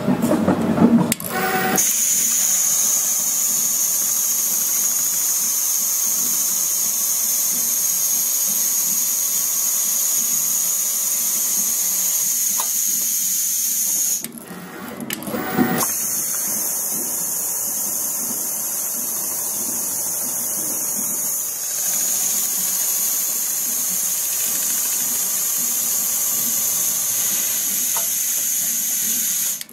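Richpeace automatic sewing machine stitching a shoe-upper pattern, running at a steady high-pitched whir. It drops away briefly about halfway through, then resumes.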